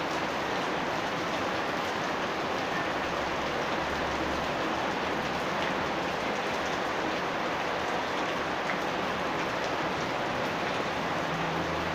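Steady rain falling on a house yard, an even hiss without pause.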